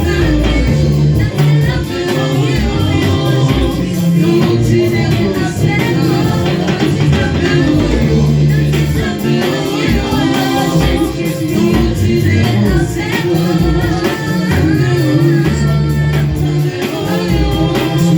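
Church worship music: a band with bass and guitar accompanying singing voices, loud and continuous.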